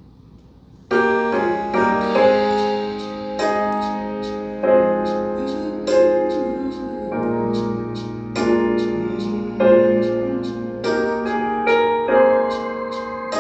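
Keyboard playing sustained piano chords, starting suddenly about a second in, with a new chord struck every second or so: the opening of a praise and worship song.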